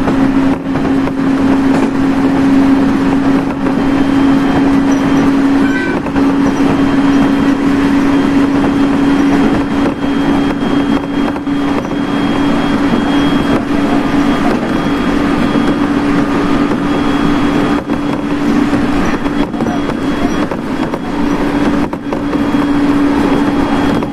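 Cabin noise of a moving electric train on the Tohoku Main Line: a steady running rumble of wheels on rails with a constant low hum, and a few short clicks here and there.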